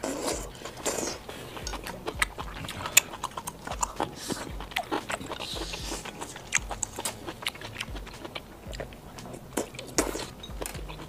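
Close-miked chewing of a mouthful of abalone, with many short mouth clicks and smacks.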